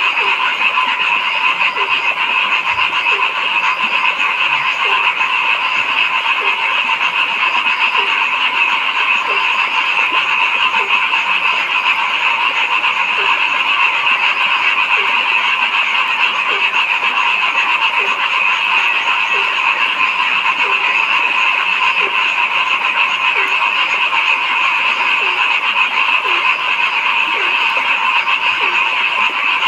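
A dense, steady chorus of many frogs calling at once, with a lower croak repeating about once a second.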